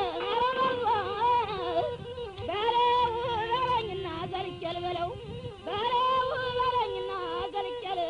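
A woman's high voice singing a slow melody of long held notes that waver and bend up and down, with short breaks between phrases.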